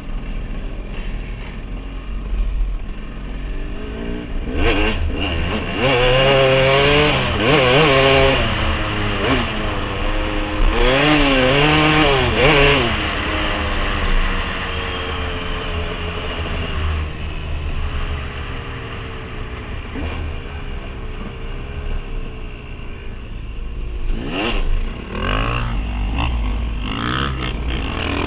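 KTM dirt bike engine running under way on a trail, its pitch rising and falling again and again with the throttle, with the hardest revving between about five and thirteen seconds in and again near the end.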